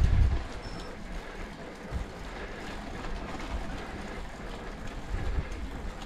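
A road bicycle riding: wind rumbling on the microphone, loudest at the very start and in gusts later, over a steady hiss of the tyres on the road surface.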